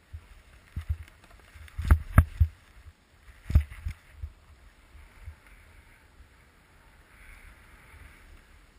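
A snowboard riding through deep powder snow, heard through a body-mounted action camera. A cluster of hard thumps and knocks comes between about one and four seconds in, then a soft steady hiss as the board slides through the snow.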